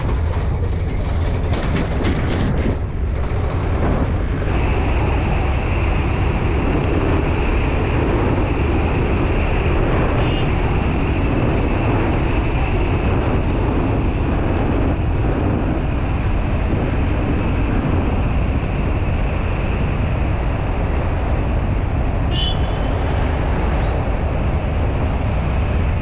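Steady rumble of a vehicle driving, with wind rushing over the microphone in the open back of the vehicle. About four seconds in a steady high-pitched tone joins the noise.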